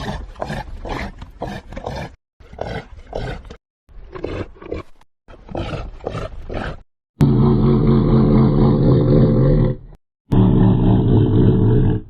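Sound-effect clips of reindeer grunts, pitched up and down, in four short bursts with silent gaps between them. These are followed by two long, deep roars made from a slowed-down cassowary call, each lasting about two and a half seconds.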